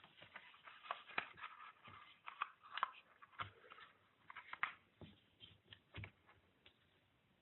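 A sheet of plain white printer paper being folded by hand: soft, irregular crinkling and crackling as the corner is brought over and the fold pressed down.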